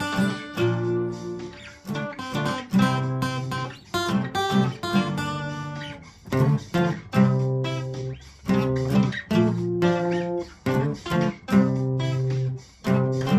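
Acoustic guitar strumming chords in a rhythmic pattern, mixing short choppy strums with chords left to ring.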